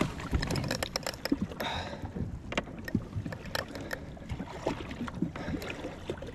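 Water slapping against the hull of a drifting jet ski, with many irregular small knocks and clicks.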